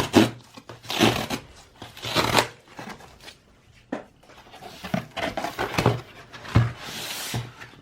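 A cardboard box being opened: several rasping tears near the start, then softer rustling of packaging with a few light knocks.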